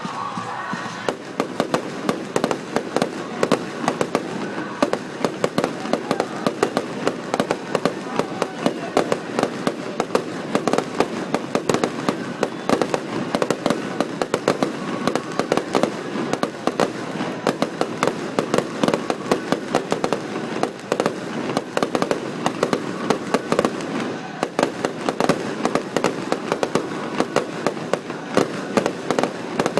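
Fireworks show in a dense barrage: rapid, overlapping bangs and crackles, many a second, with frequent louder booms standing out, picked up by a phone's microphone.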